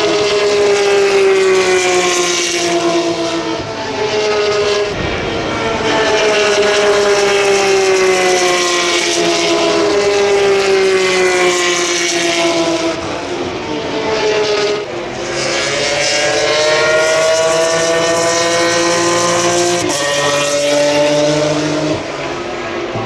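Single-seater racing cars passing at speed, one after another. The engine pitch glides down as each car goes by, rises again later, and drops in sudden steps at gear changes.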